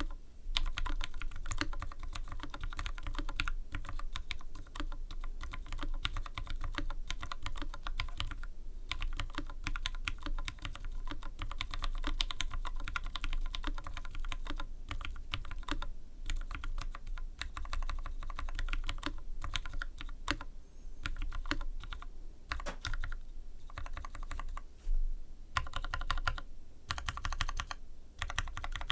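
Continuous typing on a Rama Works M60-A mechanical keyboard with Tealios V2 linear switches lubed with Krytox 205g0, Zeal stabilizers and GMK Mizu keycaps: a rapid stream of keystroke clicks, with a few brief pauses near the end.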